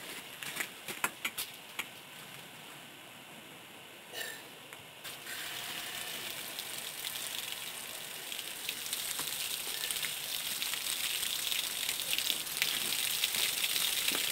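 Hose water running into a flushing attachment on an OMC Cobra stern drive's lower unit and splashing out onto gravel, a steady hiss that gets louder about five seconds in as the flow starts in earnest. A few sharp clicks in the first two seconds as the hose fitting is handled.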